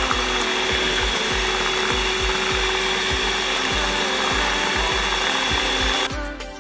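Electric hand mixer running at speed, its twin beaters whirring and churning through a thin cream mixture in a plastic bowl, with a steady whine; the motor cuts off abruptly about six seconds in, leaving background music with a steady beat.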